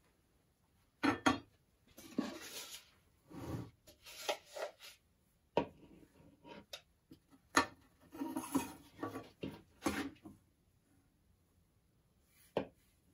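Steel rules and a square being handled on a wooden workbench: scattered metallic clinks and knocks with scraping in between, as the tools and a neck blank are moved and set down. One last knock comes near the end.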